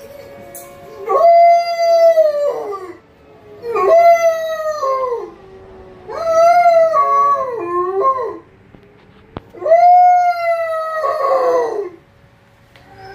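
A 15-month-old Lycan Shepherd howling: four long howls, each holding its pitch and then sliding down at the end, set off by a tornado siren.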